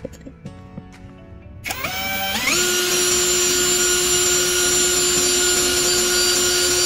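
Brushless cordless drill motor starting up about two seconds in, its whine rising in pitch as it spins up, then running loud and steady at high speed. Quiet background music plays before it starts.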